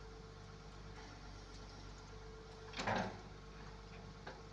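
Excavator's diesel engine idling steadily, with one loud clunk, lasting well under a second, about three seconds in from the bucket-change work, and a faint click near the end.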